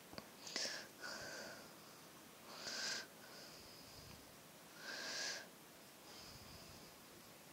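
Faint, close breathing through the nose, with a slight whistle, one breath about every two seconds.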